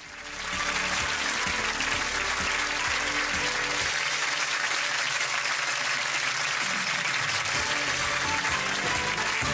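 Studio audience applauding steadily over closing theme music, fading in at the start.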